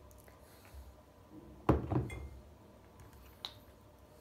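A large glass jar handled and set down on a table: two dull knocks close together a little before halfway, then a single light click near the end.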